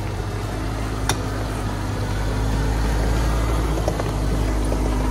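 Jeep Cherokee XJ engine running at crawling speed on a dirt trail, a steady low rumble that grows louder from about halfway through as the Jeep draws close. A single sharp click sounds about a second in.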